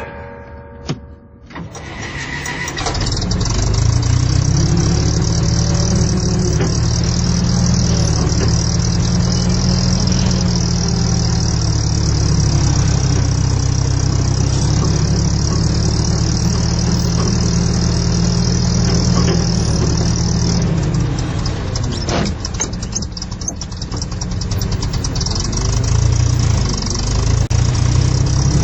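A big forklift's engine starting about two seconds in, then running steadily with a low drone. It eases off briefly about two-thirds of the way through and picks up again near the end.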